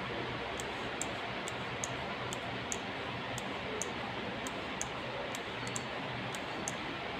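Light, sharp ticks about two a second, slightly uneven in spacing, over a steady background hiss.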